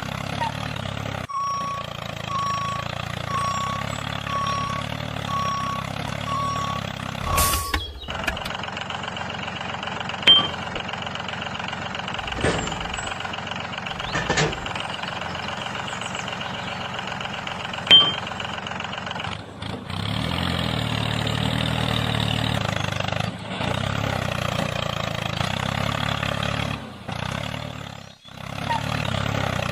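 Tractor engine running steadily, with a reversing beeper sounding in a string of evenly spaced beeps over the first several seconds. Two sharp clicks come later, and the engine gets a little louder about two-thirds of the way through.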